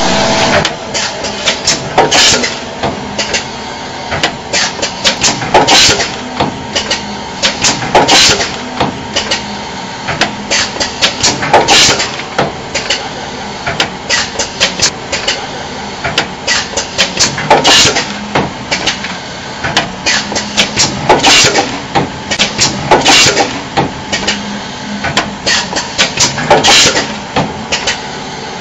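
GGS-118 P5 automatic plastic ampoule filling and sealing machine running: a steady hum with constant clicking and clacking from its air cylinders and mechanism, and a louder burst of clacking every few seconds as it cycles.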